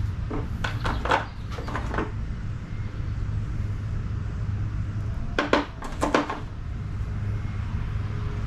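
Metal sockets and a socket wrench being handled: a few scattered clicks and knocks in two short clusters as the wrong socket comes off and another is fitted, over a steady low hum.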